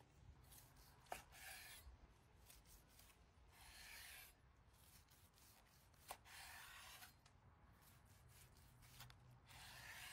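Knife sawing through a grilled steak on a cutting board: about four faint rasping strokes, one every two to three seconds, with two light clicks of the blade.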